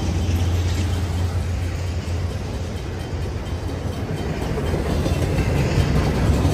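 Double-stack intermodal freight train rolling past close by: a steady, loud low rumble of the cars and wheels on the rails.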